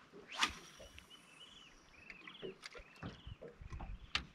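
A bird calling: a run of short whistled notes, each rising and falling in pitch. A sharp click about half a second in is the loudest sound, with a few lighter knocks later.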